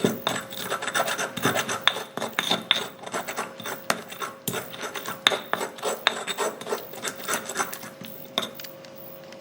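Spices being ground into a paste with a pestle in a cobek, the flat Indonesian mortar: repeated gritty rubbing and scraping strokes, a few a second, that grow sparser near the end.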